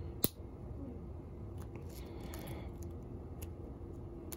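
A single sharp snip about a quarter second in, as cutters bite through one of the small plastic tabs joining the hoops of a tiny whoop drone frame. It is followed by a few faint clicks of the plastic frame being handled.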